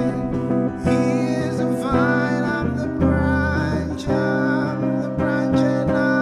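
Acoustic guitar strummed in a slow song, with a stroke roughly every second and chords ringing between them.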